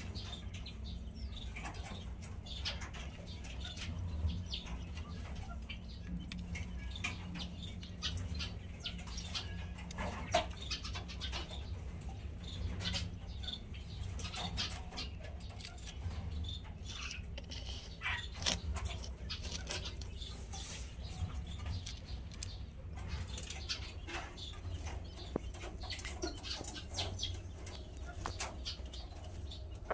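Quail eggs being gathered by hand into a bamboo basket: scattered light clicks and rustles as the eggs are picked up and knock together, over a steady low hum.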